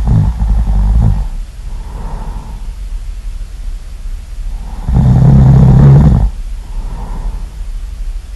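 Person snoring loudly: two loud snoring breaths about five seconds apart, each lasting about a second and followed by a softer breath.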